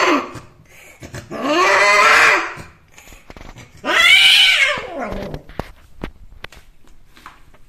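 Cats mating, with the female yowling: long, loud yowls that rise and fall in pitch. One trails off just at the start, then two more follow about two seconds apart, the last one higher. A few faint clicks follow.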